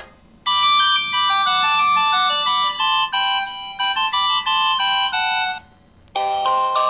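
MS350 mobile phone ringtone: a synthesized melody of quick, bright notes that stops about five and a half seconds in. After a short gap, another ringtone melody starts near the end.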